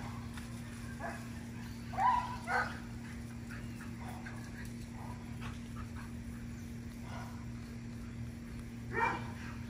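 A dog barking in short yips: two about two seconds in and another near the end. Between them come faint short squirts from a hand trigger sprayer.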